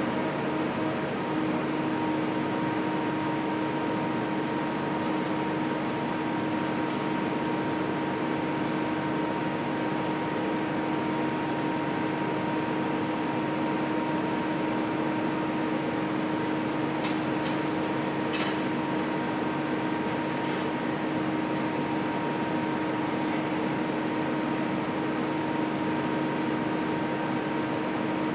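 Fletcher 3100 Series roof bolter's power unit running steadily, a constant hum with a steady whine, with a few faint clicks about two-thirds of the way through.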